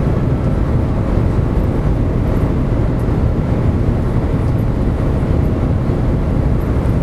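Steady loud rumble and rush inside the passenger cabin of the Shanghai Maglev, a Transrapid magnetic-levitation train, as it accelerates past 410 to 420 km/h toward its top speed. The noise is even, with no breaks or knocks.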